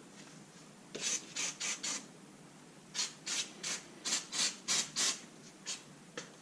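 Toothbrush scrubbing degreaser-soaked grime off a 1978 Victa two-stroke mower engine in short, quick strokes: a group of four about a second in, then a run of about seven from about three seconds in, and a couple more near the end.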